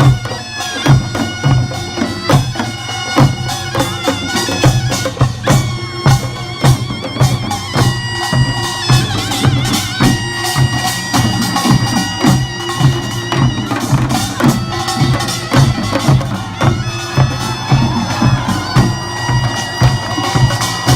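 Instrumental background music: a steady beat under long held melody notes, some with vibrato.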